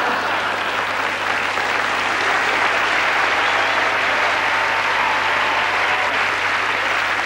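Large audience applauding steadily after a punchline.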